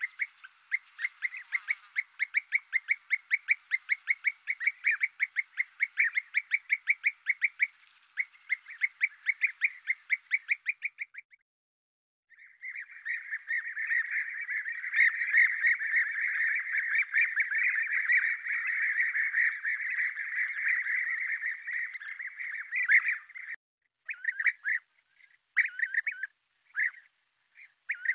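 European bee-eaters calling: a quick run of repeated calls, then after a brief pause about 12 seconds in, denser, continuous calling, which breaks into separate short bursts near the end.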